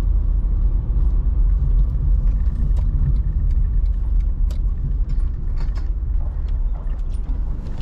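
A car being driven on a city road: a steady low rumble of engine and road noise, with light scattered clicks and rattles through the middle.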